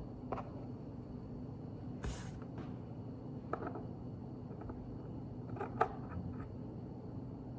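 Small plastic Lego pieces being handled and pressed together: a few scattered light clicks, with a brief rustle about two seconds in.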